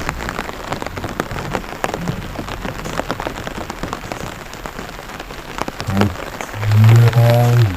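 Rain dripping and pattering onto a rice paddy, a steady stream of separate drop taps over a soft hiss. Near the end a louder low pitched drone comes in for under a second.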